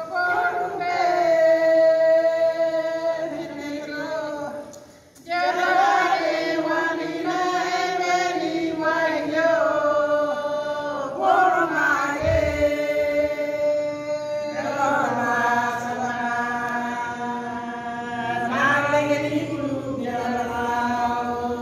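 A group of women singing a church song together in long held phrases, with a short pause about five seconds in before they carry on.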